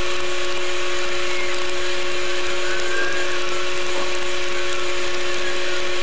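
Steady whirring hum with a few constant tones over hiss: a tape fast-forward sound effect laid over sped-up footage.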